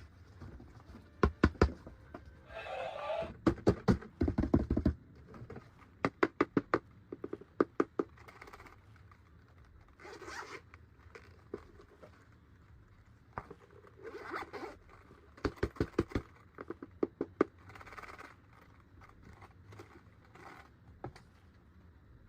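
Plastic toys and packaging being handled: several short runs of rapid zipper-like ratcheting clicks, with brief scraping rustles in between.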